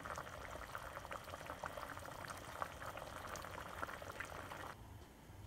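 Fish curry simmering in a pot: a faint, steady patter of small bubbles popping at the surface. It fades out near the end.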